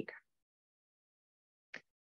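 Near silence in a pause between spoken sentences, with one brief, faint sound near the end.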